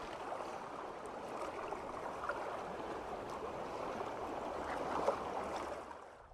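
Steady rushing, bubbling water, fading out near the end.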